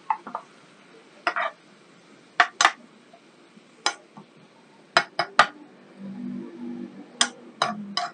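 Spatula clacking and scraping against a frying pan as cauliflower and pork are stirred and turned: about a dozen sharp, irregular knocks.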